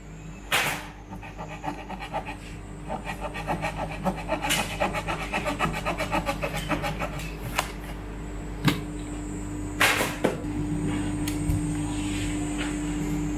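Hand saw cutting through a wood-veneer panel with quick, short rhythmic strokes, broken by a few sharp knocks. After about eight seconds the strokes give way to a steady hum.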